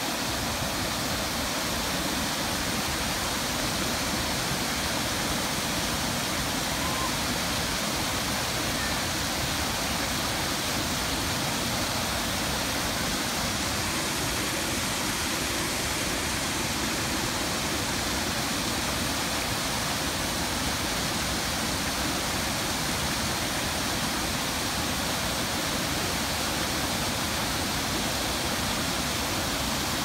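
Water pouring over a low concrete river weir into the pool below: a steady, unbroken rush of falling water.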